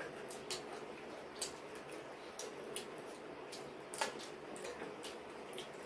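Two people eating by hand: chewing and wet mouth clicks, scattered about once or twice a second, with a sharper click about four seconds in.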